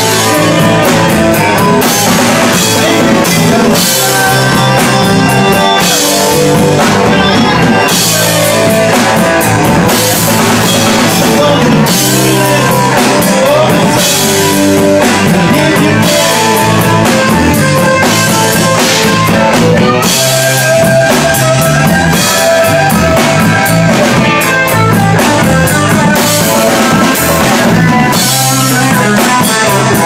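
Live rock band playing: electric guitar through an amplifier over a drum kit, with cymbal crashes recurring throughout.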